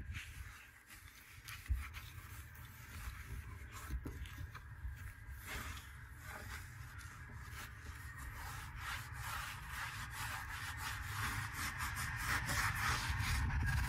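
A cloth being rubbed over a boat hull in quick, irregular wiping strokes, taking off residue to bring up the shine, growing louder near the end. A low rumble runs underneath.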